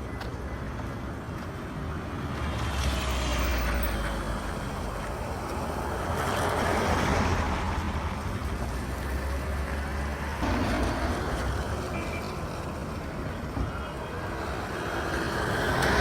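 Street traffic with vehicles passing one after another, each swelling and fading, over a steady low engine hum.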